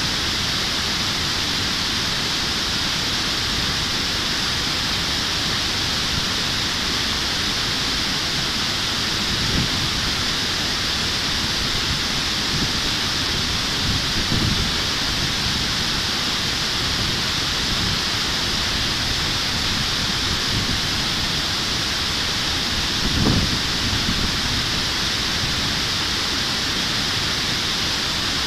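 Steady rush of river water pouring over a low concrete weir into a churning pool, with three brief low thumps.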